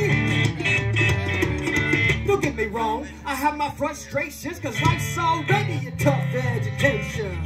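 Live band playing, led by guitar. The low end drops out for a couple of seconds in the middle, then the full band comes back in.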